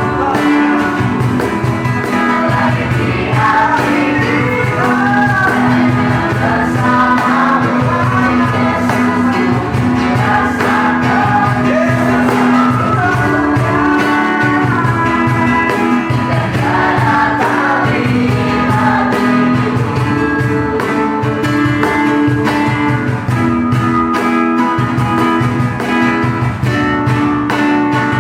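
Live Christian worship music: singers with guitar and a band playing a Christmas praise song, with a steady beat.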